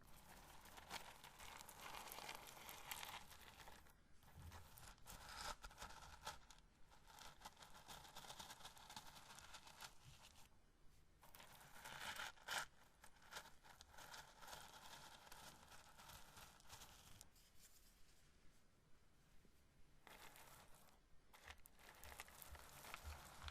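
Grilled corn kernels being handled and rubbed between the fingers: a faint, dense, dry crinkly rustling, with two short pauses.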